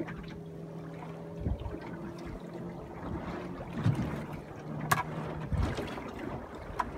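Boat engine humming steadily until about five and a half seconds in, over water splashing against a small boat's hull; a single sharp knock about five seconds in.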